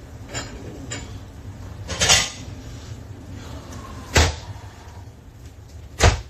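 Kitchen cupboard doors and dishes being handled: a couple of light clicks, a rattling clatter about two seconds in, then sharp knocks about four and six seconds in, over a low steady hum.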